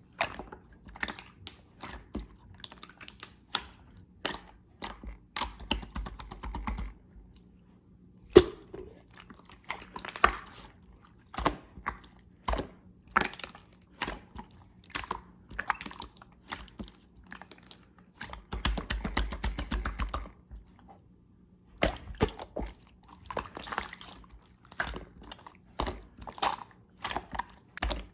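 Clear slime being squished and poked by hand: irregular sticky clicks and air-bubble pops, with two stretches of rapid crackling, about five seconds in and again near twenty seconds in.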